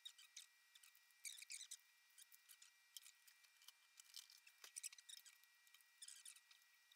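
Faint scattered clicks and light rustles over a quiet room, with a faint steady high-pitched hum.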